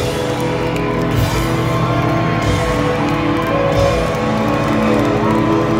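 Live band playing amplified rock music through a PA, loud and continuous, heard from within the crowd.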